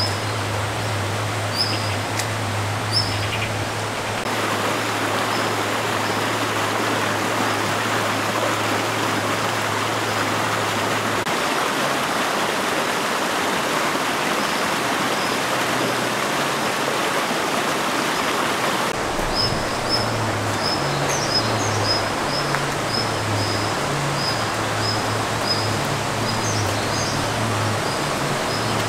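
Steady rush of running water, with short high bird chirps repeating over it and a low hum underneath.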